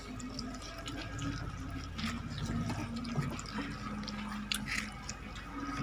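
Several puppies eating rice from a plate: wet chewing and smacking with many small, irregular clicks.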